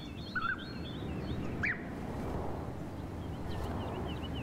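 European bee-eaters calling: a few short chirps, with faint high twittering, over a steady low rumble of outdoor background noise.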